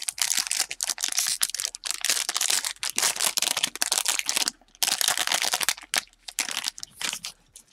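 Foil-lined wrapper of a Topps Heritage jumbo pack of baseball cards being torn open and peeled off by hand: a dense crackling crinkle with a brief pause about four and a half seconds in.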